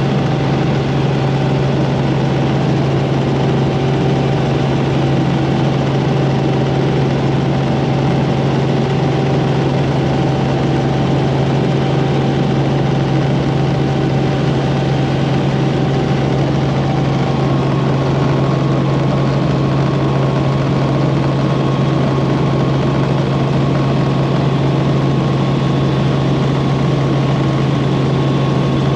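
Helicopter in flight, a loud steady drone of engine and rotor with a strong low hum. A fainter high whine runs over it and steps up to a higher pitch a little past halfway.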